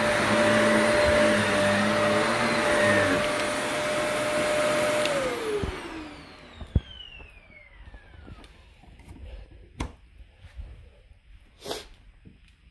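Vacuum cleaner running steadily, then switched off about five seconds in, its motor whine falling in pitch as it spins down. A few light knocks and clicks follow.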